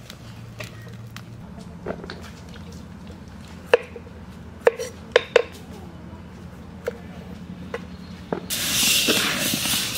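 Knife blade striking a wooden chopping board as a pointed gourd is sliced: a series of sharp, separate chops, several close together around the middle. Near the end a loud rushing hiss comes in.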